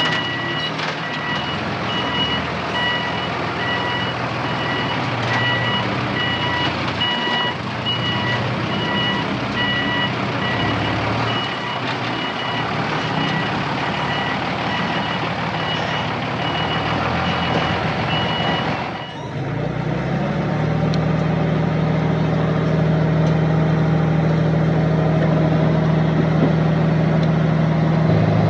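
Heavy machine's reversing alarm beeping about once a second over a running engine; the beeping stops about two-thirds of the way in and the engine runs on steadily.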